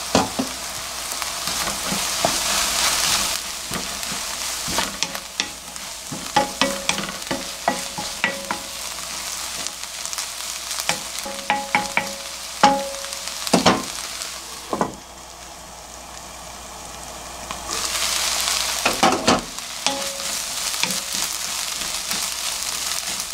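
Chopped onions sizzling in a nonstick pan over low heat while a wooden spatula stirs them, with frequent knocks and scrapes of the spatula against the pan. The sizzle drops for a few seconds about two-thirds of the way through, then rises again.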